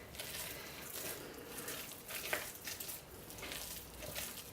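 Spatula working through thick, freshly cooked hot process soap in a bowl: faint, irregular soft squishing and scraping, with a few light taps.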